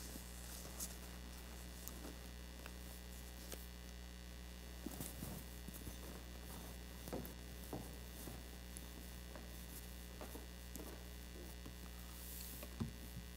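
Quiet room tone with a steady electrical mains hum, broken by a few faint scattered knocks and soft footsteps.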